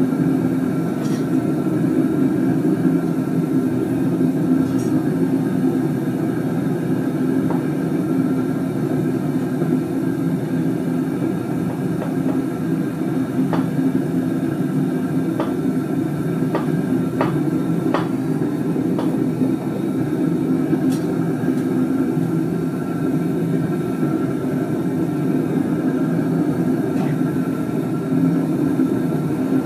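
Gas burner firing into a homemade furnace built from an old gas cylinder: a steady, low rush of flame. A few light clicks come in the middle.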